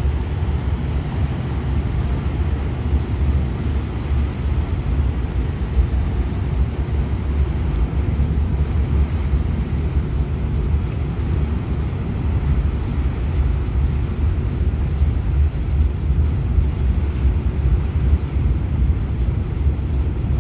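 Steady low rumble of the Jumbo Mark II-class ferry M/V Puyallup under way, its diesel-electric propulsion driving the propellers as the vessel leaves the dock, heard from the open stern deck above the churning wake.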